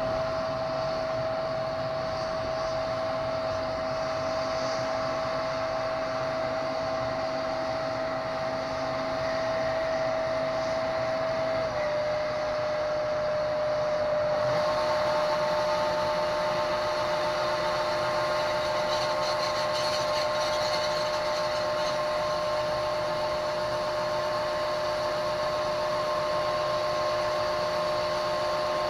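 John Deere combine harvester running steadily. About halfway through, its unloading auger is engaged: new, higher steady whining tones and a stronger hiss join the engine as corn is unloaded into the truck.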